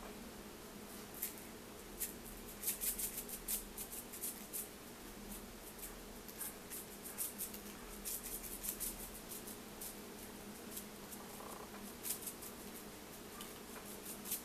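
Spice shaker being shaken over raw pork chops on a baking sheet: scattered quick, light ticks and rattles that come in clusters, over a steady faint hum.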